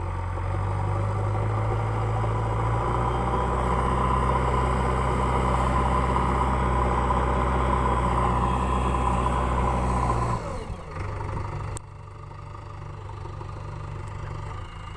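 JCB backhoe loader's diesel engine running at high revs under load as the front loader bucket works soil. About ten seconds in it drops suddenly to a lower, quieter idle. A single sharp click follows shortly after.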